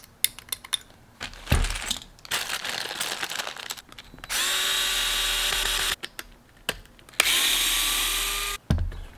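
Cordless electric screwdriver backing the screws out of an RC truck's front suspension arms. It makes two short runs of about a second and a half each, the motor whine rising as it spins up and then holding steady. Clicks and rattles of handling come before the first run.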